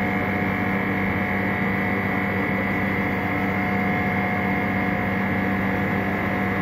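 Steady hum of a running LCD-separating freezer machine's refrigeration compressor, a mix of constant tones that holds level throughout.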